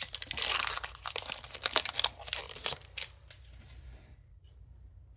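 Foil wrapper of a Pokémon booster pack being torn open and crinkled for about three seconds, then quiet.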